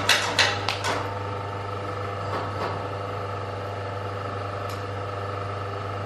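Air-spring crimping machine running with a steady hum and no crimp in progress. A few light clicks of parts being handled in the die come in the first second.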